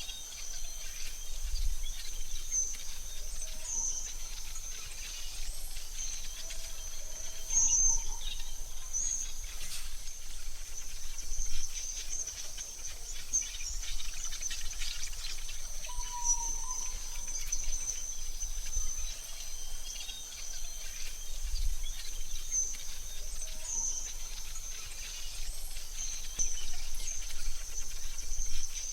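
Forest ambience: a steady high insect trill runs throughout, with a few short bird chirps here and there and faint low rumbles now and then.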